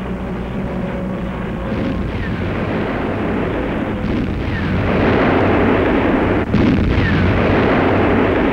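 Wartime bombing soundtrack: a dense, continuous rumble of explosions and fire that grows louder through the middle, with a brief sharp drop a little past the middle and a few faint short falling whistles.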